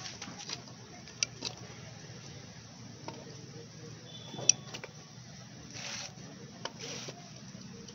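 Scattered light metallic clicks and clinks as a long metal hand tool works at the bolts of a Honda EP 1000 generator's aluminium crankcase, with two short scraping swishes near the end, over a faint steady low hum.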